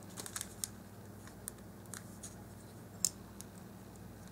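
Small wooden craft-stick pieces being handled and pressed together on a paper-covered table: a scatter of light clicks and taps, the sharpest about three seconds in, over a faint steady hum.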